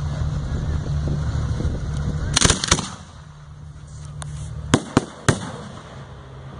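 Aerial firework shells: a loud launch from the mortar tubes about two and a half seconds in, then three sharp bangs in quick succession near five seconds as the shells burst. A steady low hum runs underneath.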